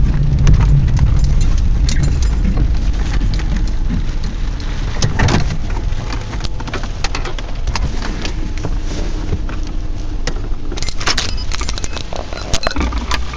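Heavy wind buffeting the phone's microphone: a loud, steady low rumble with scattered rattling clicks, which come thicker near the end.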